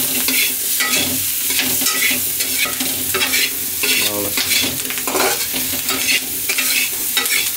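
Diced potatoes and spices frying and sizzling in oil in a stainless steel kadai, stirred over and over with a metal spatula that scrapes the pan in repeated strokes. This is the kasha stage of a Bengali curry, the masala being fried down before water goes in.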